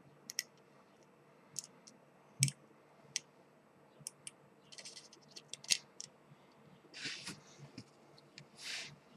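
Faint, scattered small clicks and taps as LEDs' wire leads are pushed into the holes of a circuit board and the board is handled, with a couple of brief scrapes near the end.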